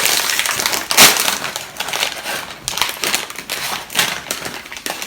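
Loud, irregular crunching and crinkling of Wrap Snacks sour cream and ranch crisps and their packet as they are handled and bitten into, with the sharpest crunch about a second in.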